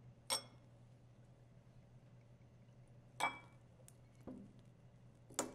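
Glass clinking as a whiskey bottle and small tasting glasses are handled on a wooden table: three sharp, ringing clinks a few seconds apart, with a softer knock between the last two.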